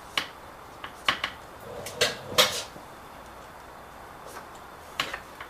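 A handful of sharp clacks and knocks of hard parts as a motorcycle seat is worked onto its mount. Most come in the first half, the loudest about two and a half seconds in, with one more near the end.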